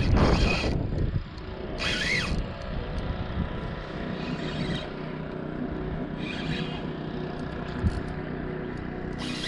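A cast with a spinning rod, a swish and line running off in about the first second, then a Shimano Stradic spinning reel cranked steadily to retrieve the lure. A steady low hum runs under it, with a few short hissing bursts.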